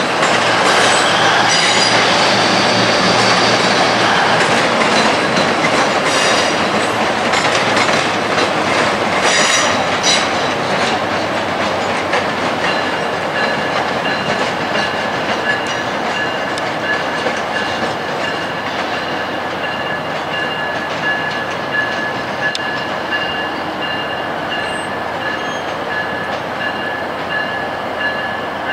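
Three-car Union Pearson Express diesel multiple unit rolling over the station's switches: a steady rumble with wheels clacking over rail joints early on. From about halfway through, a steady high-pitched wheel squeal carries to the end.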